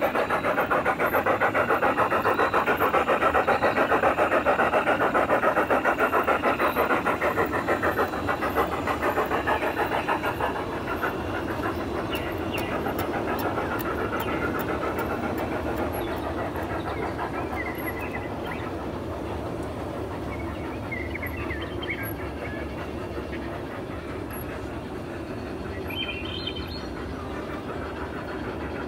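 Large-scale model steam locomotive chuffing in a fast, even rhythm. It is loudest for the first eight seconds or so, then grows fainter.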